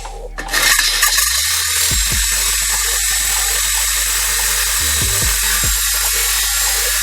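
Homemade angle grinder running at speed, a loud steady noise that starts abruptly about half a second in.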